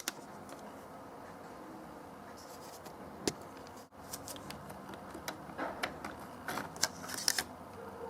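Handling noise from work on an iMac's RAM bay: scattered light clicks and taps of small plastic and metal parts, one sharp click about three seconds in and a run of clicks near the end.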